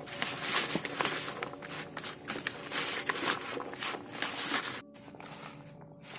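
Hands stirring and tossing diced raw young papaya cubes in a plastic colander: a busy run of soft clicks and rustles of the wet cubes knocking together and against the plastic, stopping abruptly about five seconds in.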